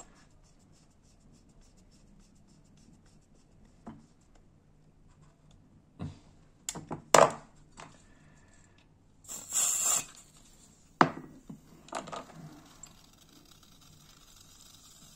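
Several sharp clicks and taps of small metal lighter parts being handled, the loudest about halfway through, then a short loud hiss of butane at the Saffa/Rowenta lighter's gas refill valve. A faint hiss lingers near the end: gas leaking at the side of the valve, where the O-ring needs replacing.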